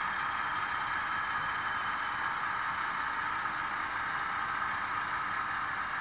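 Model locomotive sound decoder playing an ALCO 251 turbocharged diesel prime mover at idle with the throttle closed, through the locomotive's small onboard speaker, giving a thin, hissy, steady engine sound.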